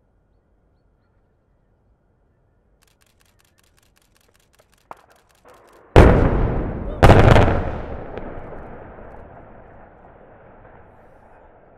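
Demolition explosive charges felling a tall concrete power-station chimney. A rapid run of faint ticks and two small cracks come first, then two very loud blasts about a second apart. A long rumble follows and fades away.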